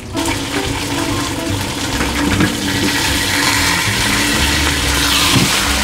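A whole rock bream frying in hot oil in a frying pan, a loud, steady sizzle that starts suddenly and flares up twice as the fish is turned with tongs.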